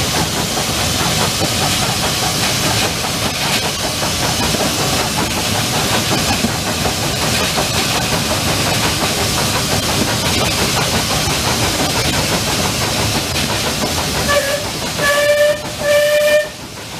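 1898 steam locomotive running, with a steady hiss of steam and rumble from the cab. Near the end its steam whistle sounds three times, one short toot and two longer ones.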